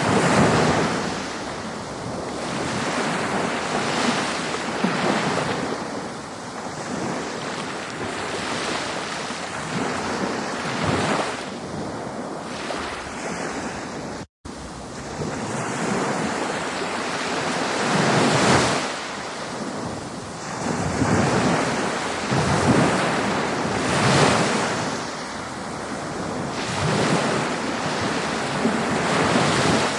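Ocean waves breaking and washing in, a continuous rush that swells and falls back every few seconds. The sound cuts out for an instant about halfway through.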